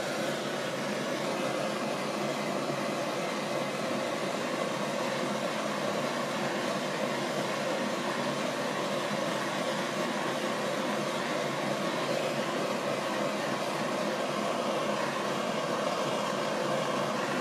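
Handheld propane torch burning with a steady hiss while its flame melts the end of an HDPE plastic strip, growing slightly louder near the end.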